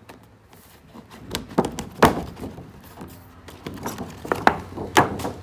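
Stiff clear plastic packaging of a baby blanket being handled and opened: a series of crackles and knocks, the loudest about two seconds in and again near five seconds.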